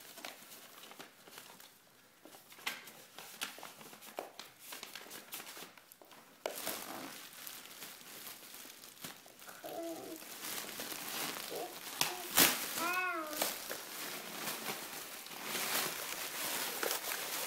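Clear plastic bag crinkling and rustling as a small child's hands work at it, louder from about six seconds in, with a sharp click about twelve seconds in.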